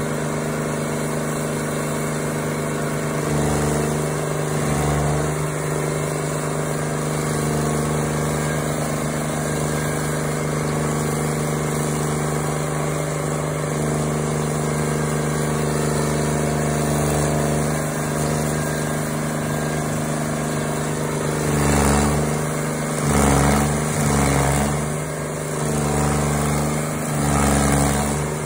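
Intimidator stump grinder's engine running steadily. Its pitch dips briefly a few times, mostly near the end, as it comes under load, with a rough grinding noise as the cutter wheel chews into the stump.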